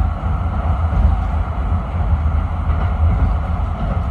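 Coast tram running along its track at speed, heard from inside at the front: a steady low rumble of wheels on rail and running gear.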